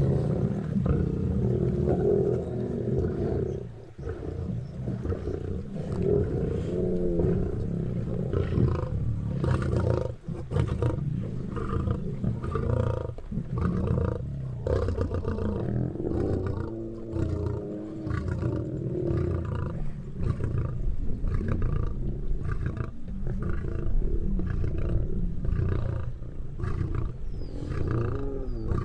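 African lions growling over a zebra kill as the pride feeds, repeated low growls rising and falling in pitch, mixed with the tearing and chewing of the carcass.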